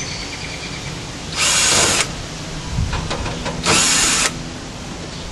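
Cordless drill/driver spinning in two short bursts, about two seconds apart, backing screws out of a computer tower case.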